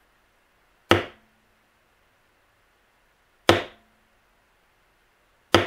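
Mallet striking a leather beveling tool three times, each a sharp knock with a brief low ring after it, driving the beveler along the cut lines of damp tooling leather to bevel them.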